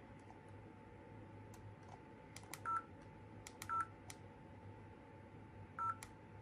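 Kingslim D2 dash cam's key-press beeps, its "key voice", sounding as its menu buttons are pressed. There are three short electronic beeps: two about a second apart, then one about two seconds later, with faint button clicks around them.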